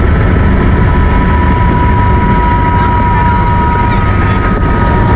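Helicopter in flight, heard from inside the cabin: a steady loud rotor and engine throb with a constant high turbine whine.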